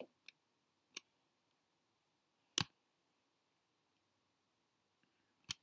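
A few single computer mouse clicks spaced a second or more apart, the loudest about two and a half seconds in, with a quick pair near the end.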